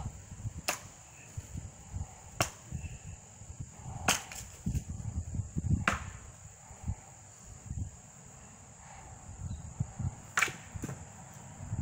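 A long, thin tree branch swung hard through the air, making short, sharp swishes about five times, spaced a second or more apart.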